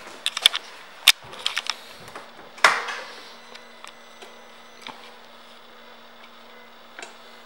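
Clicks and knocks from hands working the controls of a 2016 Harley-Davidson Street Glide, the loudest a noisy knock about two and a half seconds in. A faint steady electrical hum with a thin high whine then sets in as the ignition comes on and the instrument panel lights up.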